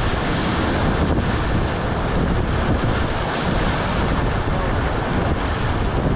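Whitewater rapids of a river at high water (about 3000 cfs) rushing and churning around an inflatable raft, with wind buffeting the microphone.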